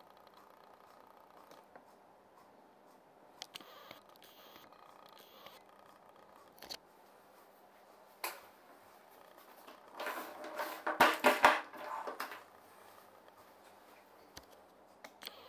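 Handling noise: a few isolated clicks, then about ten seconds in a short burst of rapid knocks and scraping as the plastic-housed portable air compressor is turned around on a wooden desk. Around these there is only a faint room hum.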